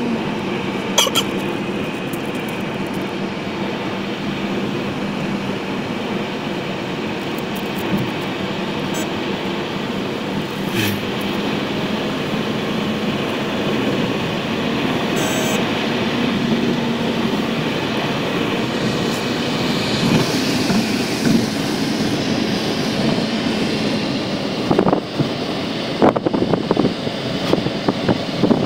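Steady drone of road and engine noise inside a moving car, with a few brief clicks, growing a little louder and rougher in the last several seconds.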